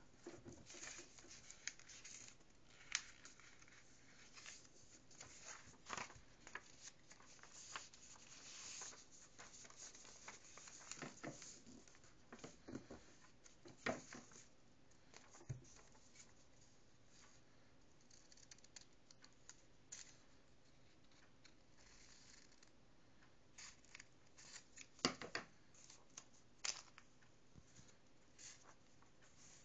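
Faint paper handling: a sheet of origami paper rustled, slid and creased against a tabletop, with scattered soft taps and clicks and a few scissor snips. The sharpest clicks come about a quarter of the way in, around the middle, and several close together near the end.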